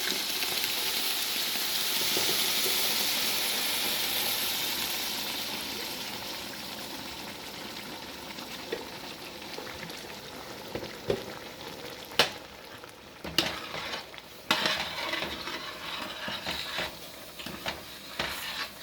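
Blended tomatillo salsa hitting the hot oil and fried pork in a pot, hissing loudly at once and dying down over several seconds. Then a spoon stirring, scraping and knocking against the pot.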